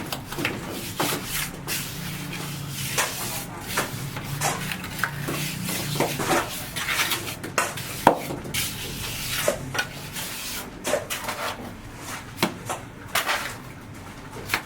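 Irregular knocks, clinks and scrapes of hand work with tools and building materials, with one sharper knock about eight seconds in.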